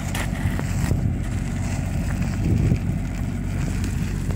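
Wind rumbling on the microphone of a camera carried on a moving bicycle, with a faint steady low hum underneath.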